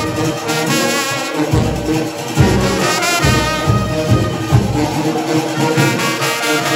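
Junkanoo brass section of trumpets, trombones and a sousaphone playing a lively tune live, the low brass sounding strong bass notes every second or so under the higher horns.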